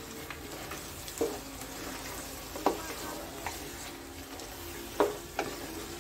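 Spatula stirring boiled mutton into a sizzling masala in a frying pan: a steady sizzle with a few sharp scrapes and knocks of the spatula against the pan, the loudest about five seconds in.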